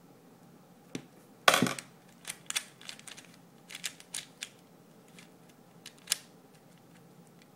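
Plastic clicks and clacks from handling and adjusting a speed cube, about ten irregular sharp ones. The loudest is a short rattle about a second and a half in.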